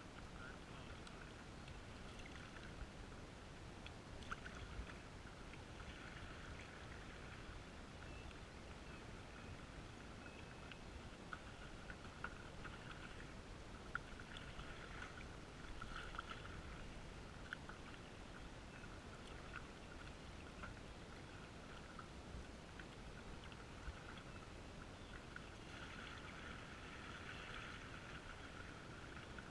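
Faint, muffled splashing and dripping of canoe paddles in calm river water, heard through a waterproof camera housing, with a few light knocks.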